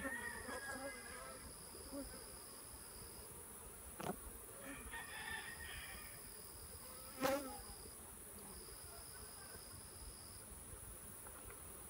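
Honeybees buzzing around an open nuc hive while its frames are handled, now and then a bee passing close with a buzz that sweeps up and down. Two short knocks come about four and seven seconds in, the second the louder, over a steady high-pitched insect whine.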